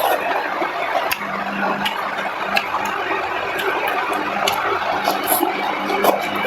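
A person eating curry and rice with wet chewing and mouth sounds and many short, irregular clicks.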